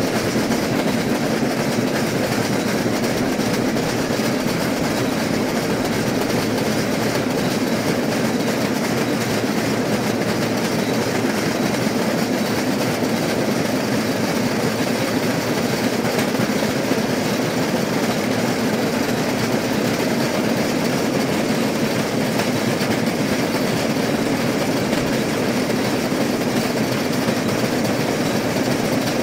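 A rail vehicle rolling steadily along the track: a continuous, even running noise that does not speed up, slow down or stop.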